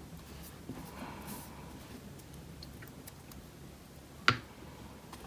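Quiet handling of craft items on a wooden tabletop, with faint light ticks and one sharp tap about four seconds in.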